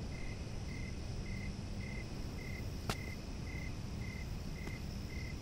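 A cricket chirping steadily in short, evenly spaced pulses, about two a second, over a low hum, with a single sharp tap about three seconds in.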